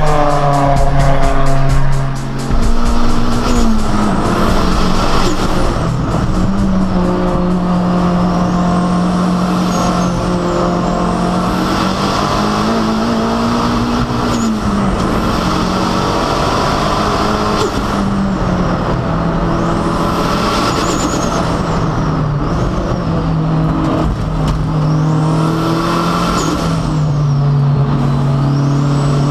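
Toyota MR2 SW20 race car with a big Garrett 3582 turbo, first heard passing by fast, then from inside the cabin. Its four-cylinder engine revs hard at full throttle past 7,000 rpm and drops back off throttle into corners, with a high whistle that rises and falls several times.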